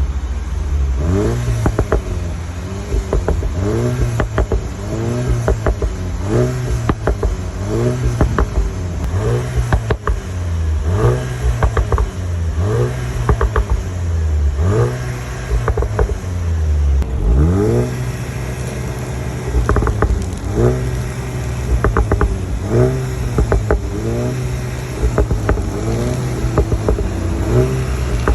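Volkswagen Golf GTI Mk8's turbocharged 2.0-litre four-cylinder engine revved in short blips about once a second, each rising in pitch, with crackles and pops from the stock exhaust as the revs drop; one longer rev past the middle. This burping crackle is what owners call the DSG fart.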